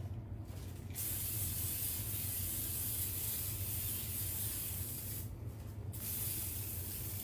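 Cooking oil spray hissing onto bread on a baking sheet, greasing it so the bread won't stick. There is one long burst of about four seconds starting about a second in, a short break, then another burst.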